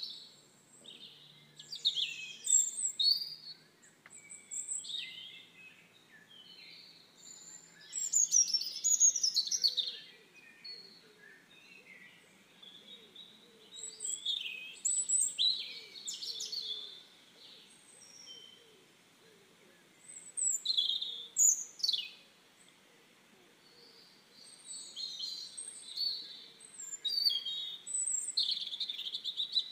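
Several songbirds chirping and trilling in clusters of quick, high notes every few seconds, with short quiet gaps between, over a faint steady background hiss.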